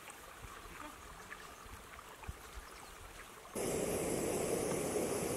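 A faint trickle of a stream, then, about three and a half seconds in, the steady hiss of a lit canister gas camping stove burner under a metal pot.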